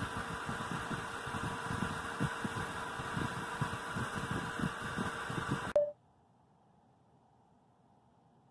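Steady mechanical hum of a running hobby CNC mill, with irregular low bumps. It cuts off abruptly about six seconds in, leaving near silence.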